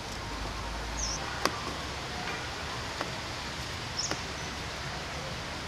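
Steady outdoor background hiss, broken by two brief high-pitched chirps from a small animal, one about a second in and one about four seconds in, and a few faint clicks.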